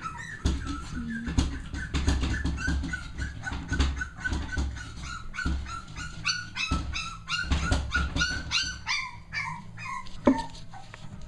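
Young Cavalier King Charles Spaniel puppies whimpering: a rapid string of short, high cries that turns into quicker, shriller yips near the end. Low thumps from handling run underneath.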